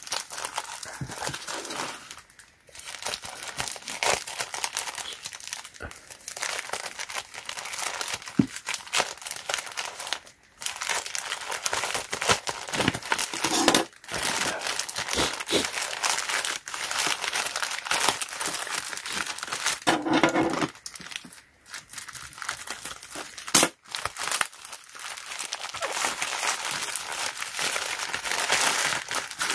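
Packaging being unwrapped: continuous crinkling and rustling with tearing, broken by short clicks, the sharpest about two-thirds through.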